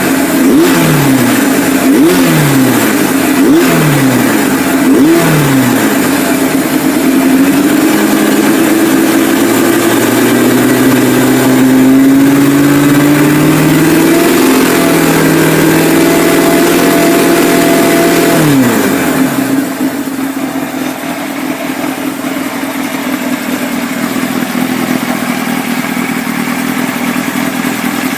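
Kawasaki Z-series air-cooled inline-four motorcycle engine revved on the stand: quick throttle blips about once a second, then revs climbing and held high for about ten seconds, before dropping back to a steady idle about two-thirds of the way in.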